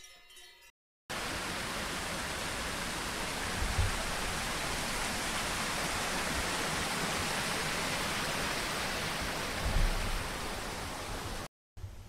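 Steady, even rushing hiss that cuts in about a second in and stops abruptly just before the end, with two low thuds, about four and ten seconds in.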